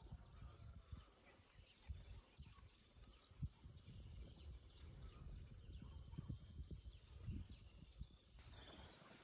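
Faint outdoor ambience: a steady high-pitched drone with about three short chirps a second, over irregular low thumps and rustling. The loudest is a single thump about three and a half seconds in, and the drone cuts off about eight seconds in.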